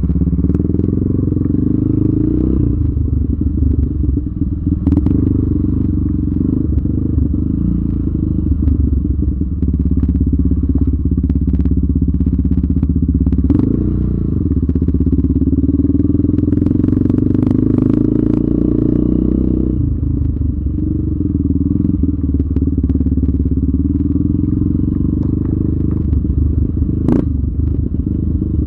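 Yamaha Raptor 700R sport quad's single-cylinder four-stroke engine running under changing throttle while riding, revving up about halfway through and easing off a few seconds later. Scattered knocks and clatter from the ride over rough ground come through the engine sound.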